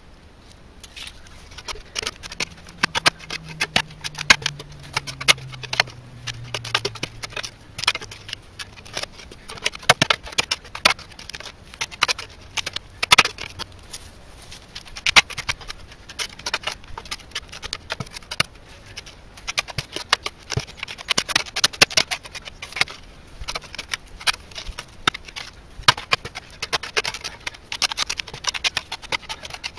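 A long-handled digging tool chopping and scraping into stony soil at the bottom of a small hole, an irregular run of sharp knocks and scrapes. The ground is hard and full of bits of rock.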